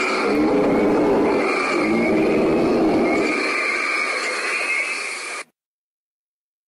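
Dinosaur call sound effect for a Diplodocus: one long, animal-like call whose pitch wavers and swells several times, cutting off suddenly about five and a half seconds in.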